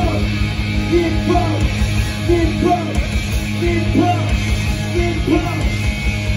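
Live rock band playing loud: electric guitar, bass and drums, with a short melodic phrase repeating about every second and a half.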